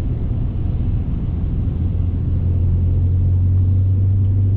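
Car running along a road, heard from inside the cabin: a low engine and road rumble. About two seconds in, a steady low hum comes in and grows louder.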